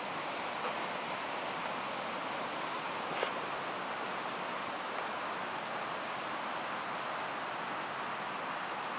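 Steady outdoor background hiss with a faint high, even tone running through it, and a single small click about three seconds in.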